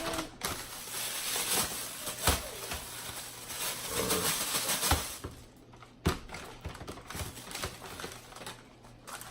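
Rustling and crinkling while lobster tails are handled, with scattered sharp clicks. It eases off about five seconds in, leaving a few isolated clicks.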